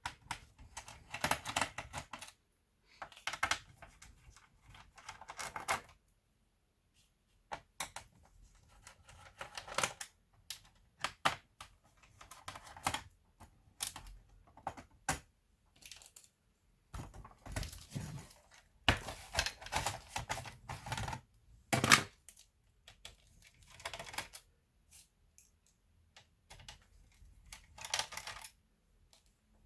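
Hands working on a laptop's plastic case and parts: irregular clicks, taps and short scraping rattles, with short pauses between them.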